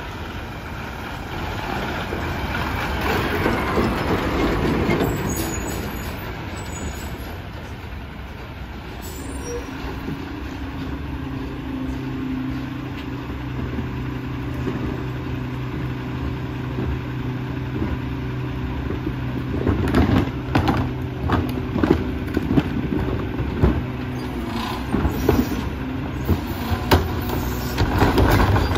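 Mack rear-loader garbage truck pulls up with its engine rising in pitch, then settles into a steady low drone as it stands with its hydraulics running. From about two-thirds of the way in come clanks and bangs as recycling carts are lifted on the cart tipper and dumped into the hopper.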